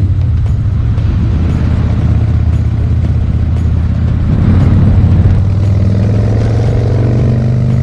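Harley-Davidson Dyna Street Bob's V-twin engine running while riding, climbing in pitch over the last couple of seconds as the bike accelerates. Heard through a GoPro fitted with a foam wind blocker.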